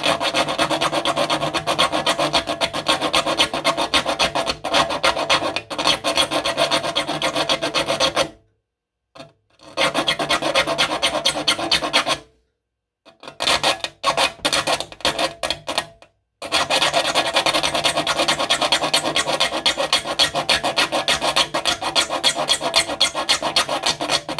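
A metal file rasping across the teeth of a hand saw in quick back-and-forth strokes, sharpening the blade. The filing comes in four runs with short pauses between them.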